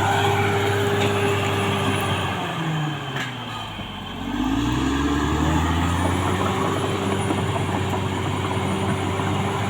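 Caterpillar D6R XL bulldozer's diesel engine running steadily. About three seconds in, its revs drop sharply and then climb back up over the next two seconds.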